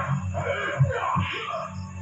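Film soundtrack music heard over loudspeakers.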